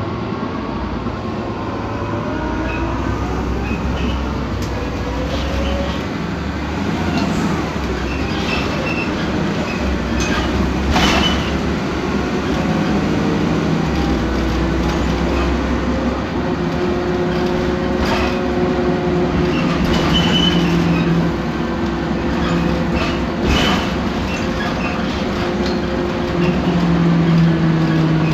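Cabin noise of a BMC Belde city bus on the move: its Cummins ISBe 6.7 diesel and ZF Ecomat 6HP504C automatic gearbox running, with a faint gearbox whine that rises in pitch over the first few seconds and then holds steady. Loose interior fittings rattle and knock now and then, with two sharper knocks about 11 and 23 seconds in.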